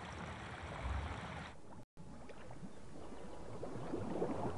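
Shallow stream water: a steady rushing hiss that cuts off briefly about two seconds in, then gentle trickling and lapping with many small drips, growing a little louder toward the end.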